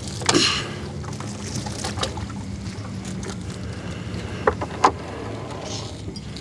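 Small fishing boat's engine idling with a steady low hum, with a few sharp knocks as the gillnet is worked aboard.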